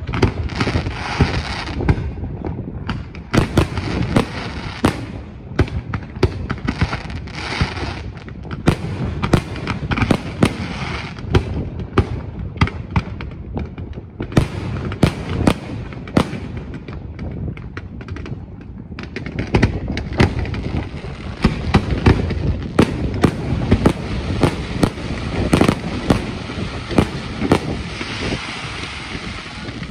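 Aerial fireworks display: a dense, rapid run of bursting shells, sharp bangs and booms with crackling between them. The barrage eases briefly about two thirds of the way through, then builds again.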